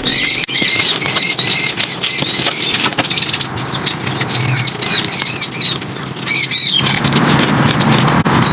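Birds calling in quick, repeated squawking chirps over a rough background with scattered clicks, giving way about seven seconds in to a steady hiss.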